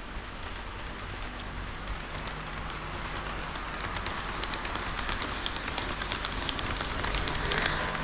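HO-scale model diesel railcar train running on sectional track: a steady rolling rush of small metal wheels with rapid fine clicks over the rail joints. It grows louder as the train nears and is loudest near the end, as the cars pass close by.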